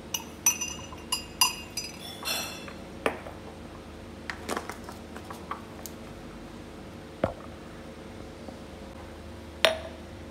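A metal teaspoon clinks and rings against a glass mug several times in quick succession as instant coffee granules are spooned in, with a short rattle of granules, then a few lighter clicks and a knock. Near the end, a drinking glass is set down on the stone countertop with one sharp clink.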